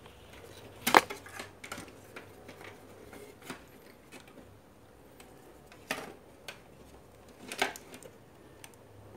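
Handling clatter: scattered clicks and knocks as a CRT television's circuit board is turned over and handled. The loudest knock comes about a second in, with others near six and seven and a half seconds.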